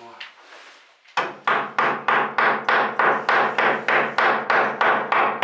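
Rapid, even hammering, about three strikes a second, driving an old rusty nail. The strikes start about a second in, with a low ring under them.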